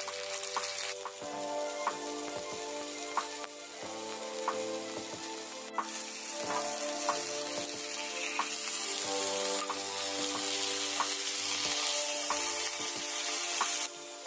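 Plant-based salmon fillets sizzling as they fry in oil in a nonstick pan, with scattered spattering pops and a wooden spatula turning them. The sizzle grows louder about halfway through and drops off sharply near the end.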